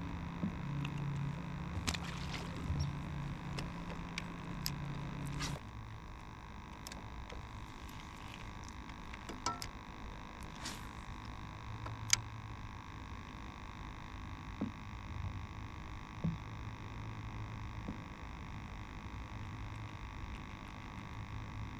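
Low steady hum that drops in pitch and level about five and a half seconds in, under scattered light clicks and ticks from handling a fishing rod, reel and line.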